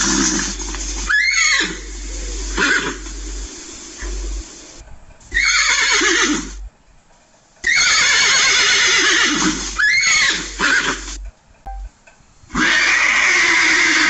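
Horses neighing: several separate whinnies, each with a wavering, falling pitch, with short gaps between them and a low hum underneath.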